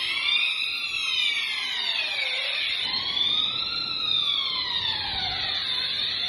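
Fire alarm siren wailing, its pitch slowly rising and falling, each rise and fall lasting about three and a half seconds.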